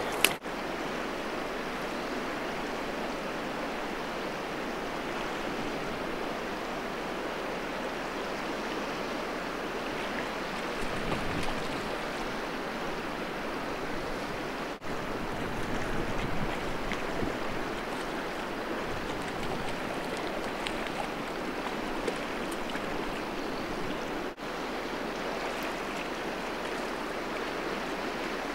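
River water flowing steadily, an even rushing hiss. It swells slightly a couple of times and drops out very briefly twice.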